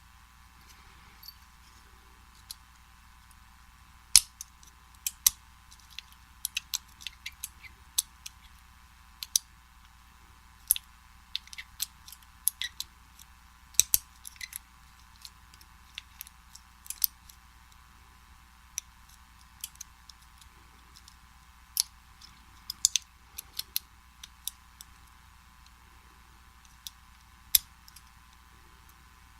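Small sharp metallic clicks and ticks at irregular intervals, some in quick clusters, from a hook pick and tension wrench working the tumblers of a vintage Slaymaker Super padlock while it is being picked.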